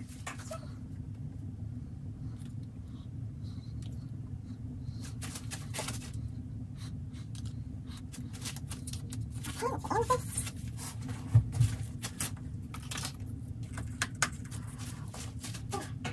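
Steady low room hum with scattered light taps and clicks from handling paint containers over plastic sheeting, and one louder knock about eleven seconds in.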